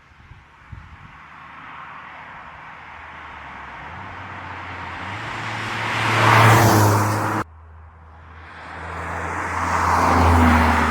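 Toyota GR Corolla's 1.6-litre turbocharged three-cylinder engine accelerating, with road and tyre noise, growing steadily louder to a peak; the sound cuts off abruptly about seven seconds in, then builds to a second loud peak near the end. A few light knocks in the first second.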